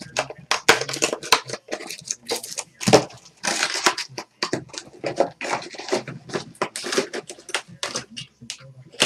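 Crinkling and tearing of a trading-card pack's plastic wrapper as packs are opened by hand: a dense run of short, sharp crackles.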